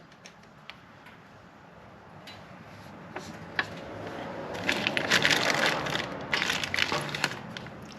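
Handling noise from fitting a motorcycle heel shifter: scattered light clicks, then two bursts of dense crackling rustle and clatter around the middle.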